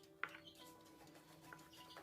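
Soft background music with sustained notes, and one sharp click about a quarter of a second in.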